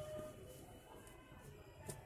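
Very quiet: faint background music and one sharp click near the end.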